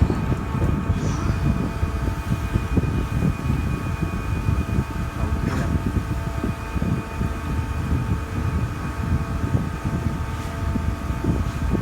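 Steady mechanical hum and rumble of a powered-up CNC lathe and shop machinery, with several steady whining tones running through it. There is a light click about halfway through.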